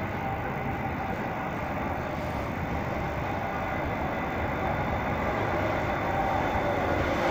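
Pesa 19WE electric multiple unit pulling into a station platform, its running noise growing gradually louder as it approaches, with a few faint steady tones over it.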